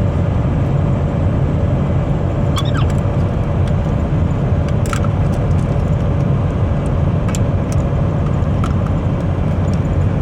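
Car cabin noise of a moving car: a steady low road-and-engine rumble with a faint steady hum. A few light clicks of the metal seatbelt tongues and buckle being handled come through at intervals.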